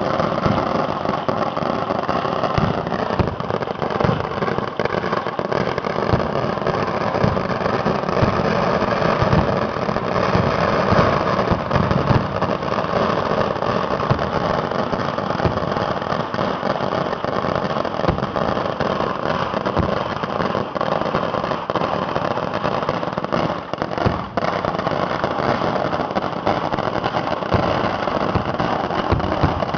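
Dense, unbroken barrage of festival fireworks going off at close range: rapid bangs and crackling run together into a continuous din.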